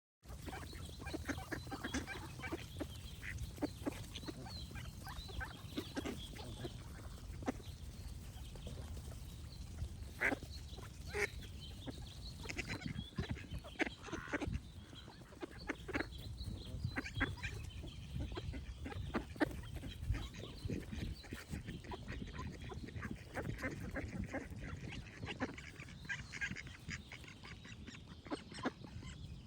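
Ducks quacking: many short, separate quacks throughout, over a steady low background rumble.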